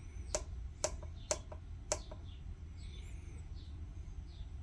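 Plastic push button on a battery communication hub's front panel clicking as it is pressed, four presses about half a second apart in the first two seconds, then stopping. Faint bird chirps follow, over a steady low hum.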